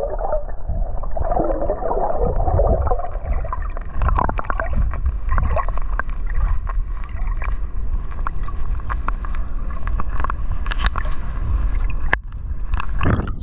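Muffled underwater sound of shallow sea water: a steady low rumble with gurgling and scattered clicks and taps, and a louder splash near the end.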